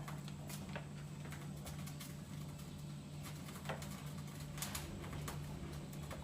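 Scattered light clicks and small pops over a steady low hum, kitchen cooking noise.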